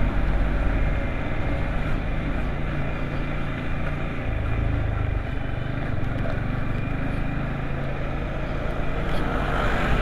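Yamaha MT-15 V2 motorcycle's single-cylinder engine running steadily while riding, under an even rush of road and wind noise.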